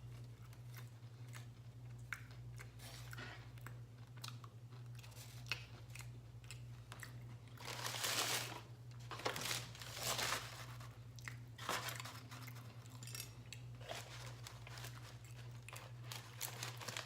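A person chewing and crunching food close to the microphone, with a run of small wet clicks and a few louder crunches about eight and ten seconds in.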